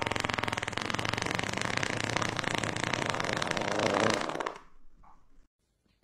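A woman's long fart, rapidly rattling, swelling to its loudest about four seconds in and then dying away.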